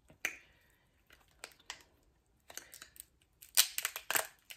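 Cooked lobster tail shell being cracked and pulled apart by hand: scattered crackles and snaps, with a denser, louder cluster of cracks about three and a half seconds in.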